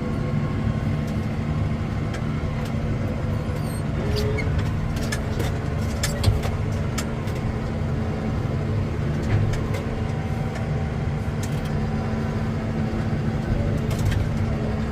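A farm vehicle's engine running steadily, with scattered light clicks and knocks over the top.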